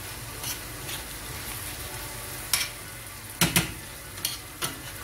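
Minced-meat and spinach filling frying in oil in a pan with a steady sizzle, while a utensil stirs it, scraping and knocking against the pan several times; the loudest knocks come as a quick pair a little past the middle.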